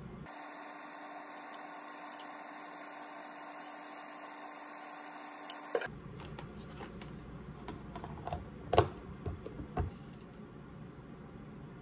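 A steady hum, then a run of light clicks and knocks as plastic food containers and their lids are handled and set down on a wooden cutting board, the loudest knocks near the end.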